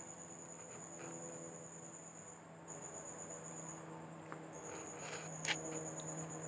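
Crickets trilling steadily in a continuous high-pitched line that breaks off briefly twice, with a faint low hum beneath. A single sharp click comes about five and a half seconds in.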